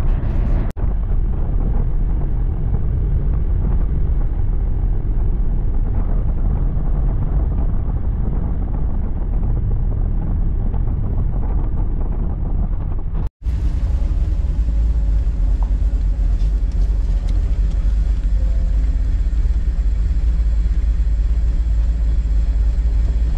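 Car engine running with road and wind noise, heard from inside an open-top car on the move: a steady low rumble, broken by two brief cuts, one about a second in and one about 13 seconds in.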